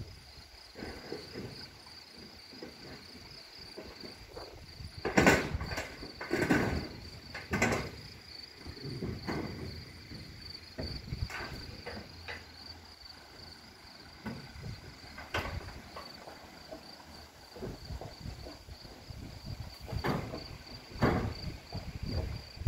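A steady, high-pitched insect trill, with irregular knocks and thumps over it, the loudest about five seconds in and a cluster of them a little after.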